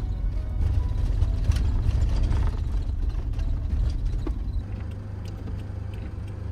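Toyota van driving on a snow-covered road, heard from inside the cab: a steady low engine and road rumble with scattered light clicks. The rumble drops somewhat in level about four and a half seconds in.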